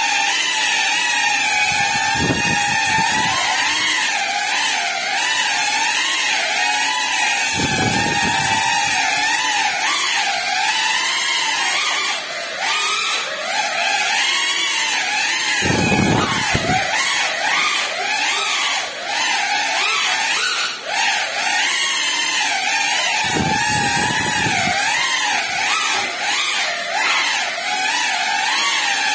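Geprc CineLog35 ducted cinewhoop flying, its motors and props giving a whine that wavers up and down in pitch with the throttle. Four short low whooshes are spaced several seconds apart.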